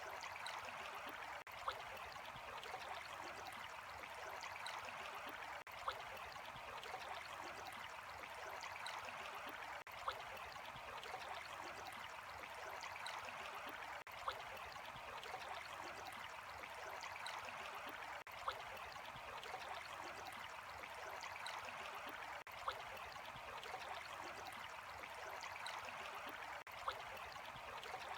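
Steady running and trickling water, like a small stream. A short click recurs about every four seconds.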